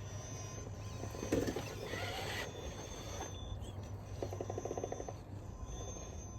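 Radio-controlled rock crawler truck driving, its electric motor and gears running, with a rapid chattering rattle for about a second near the middle.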